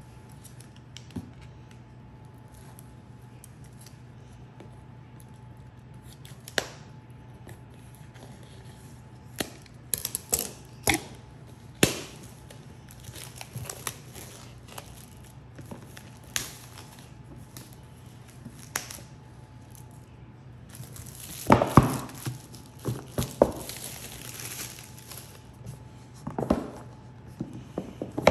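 Clear plastic shrink wrap being torn and peeled off a cardboard box: scattered crinkles and taps, with a longer, denser stretch of crinkling about three-quarters of the way in.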